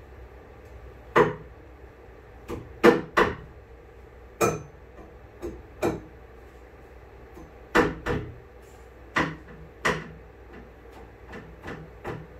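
Irregular sharp knocks and taps from hand work on a fibreglass boat hull: about a dozen, unevenly spaced, some in quick pairs.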